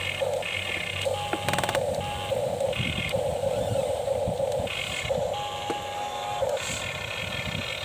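Small electric motors of a radio-controlled excavator model whining in short runs that start and stop every half second to a second and a half, as the controls are worked, with a brief run of clicks about one and a half seconds in.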